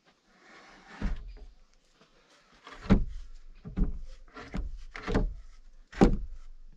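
Heavy wooden thuds as a log is shoved and knocked into place against the log roof frame: one about a second in, then five more roughly once a second.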